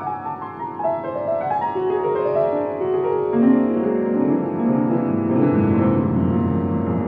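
An old, out-of-tune upright piano played solo: runs of notes stepping downward, moving into the low register and growing louder about halfway through, with heavy bass notes near the end.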